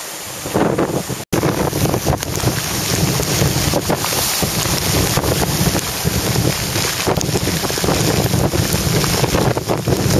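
Hurricane-force wind gusting hard across the microphone, with heavy surf pounding on the rocks underneath. The sound jumps up suddenly about half a second in and cuts out for an instant just after a second in.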